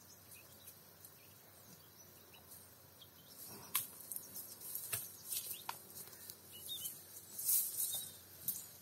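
A cow grazing: after a quiet start, a series of crisp rips and crunches as grass is torn and chewed, loudest about halfway through and near the end. Faint bird chirps and a soft steady hiss sit underneath.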